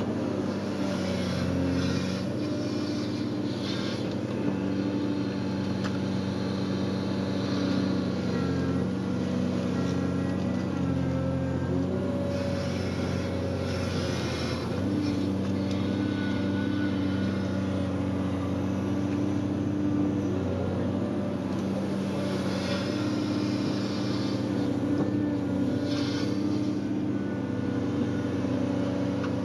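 Excavator's diesel engine running, its pitch stepping up and down every few seconds, with brief rushes of noise over it.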